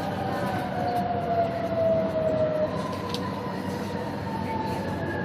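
Shanghai Metro Line 3 train braking into a station: the electric traction drive whines with a slowly falling pitch, over a steady rumble of the car running on the rails.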